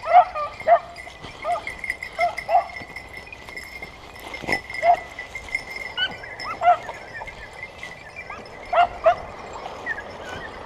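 Hunting dog giving about ten short, high yelps at uneven intervals, over a faint steady high ringing. A single sharp knock about four and a half seconds in.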